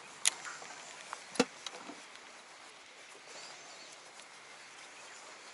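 Handling sounds from a baitcasting reel and rod: a sharp click, then a few small ticks and a duller knock in the first two seconds. After that only faint open-air background remains.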